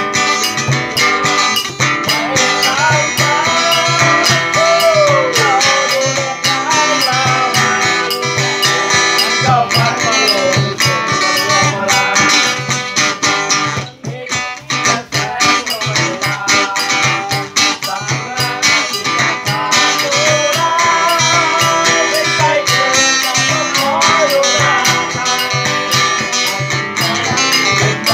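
Two guitars, one acoustic, played together in an informal folk-style jam, with a rhythmic low pulse and a sliding melody line over them. The music dips briefly about halfway through, then carries on.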